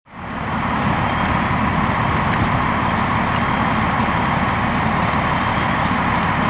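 Steady rumble of fire-truck engines running at a building fire, with faint crackles over it; it fades in at the start.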